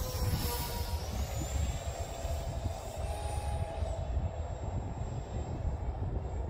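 Electric ducted fan of a small 3D-printed RC A-4 Skyhawk jet (50 mm fan) whining in flight. The thin high whine rises in pitch about a second in and shifts briefly around three to four seconds, under a heavy low rumble of wind on the microphone.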